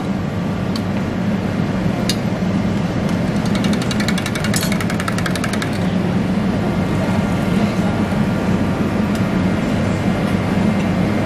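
A steady low hum throughout, with a few single metal clinks and, in the middle, about two seconds of rapid clinking: a spoon stirred fast in a stainless-steel mug.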